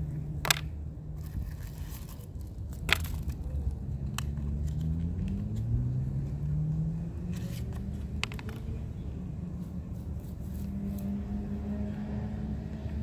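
A motor vehicle's engine drones steadily, its pitch rising and falling as it moves. Two sharp clicks stand out about half a second and three seconds in, with a few fainter ticks later.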